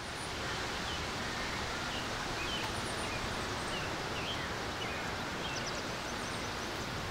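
Outdoor ambience: small birds chirping now and then over a steady background rush.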